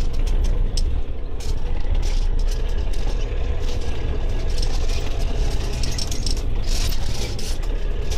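Engine of a tree-felling machine running steadily, with frequent short clicks and rattles over it.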